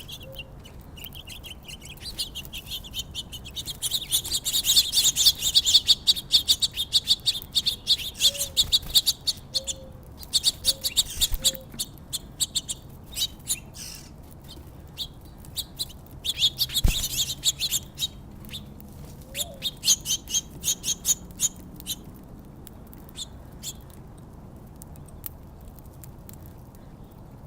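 A flock of small songbirds chirping at a backyard feeder in rapid, overlapping chirps. The chatter is densest about four to seven seconds in and again around seventeen seconds, then thins to scattered chirps near the end.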